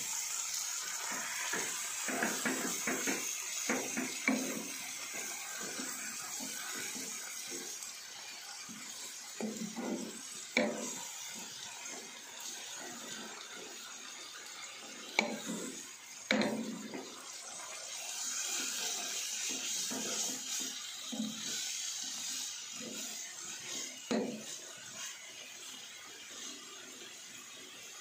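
Rice vermicelli and vegetables stir-frying in a pan: a steady sizzle, with the spatula scraping and tossing the noodles and a few sharp knocks against the pan.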